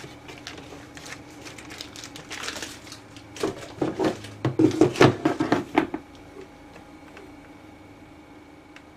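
Clicking, knocking and clattering of a digital microscope and rock specimen being handled and repositioned on a hard surface, in clusters that are loudest about four to six seconds in. After that only a faint steady hum remains.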